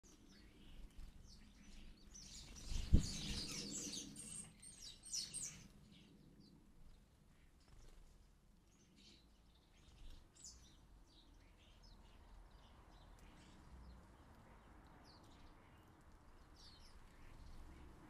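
House sparrows chirping: a dense flurry of short chirps between about two and five seconds in, then scattered single chirps. A single sharp knock about three seconds in is the loudest sound.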